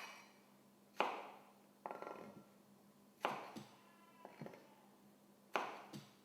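Kitchen knife cutting garlic cloves in half on a chopping board: about six sharp chops, roughly one a second and unevenly spaced, each with a short fading ring.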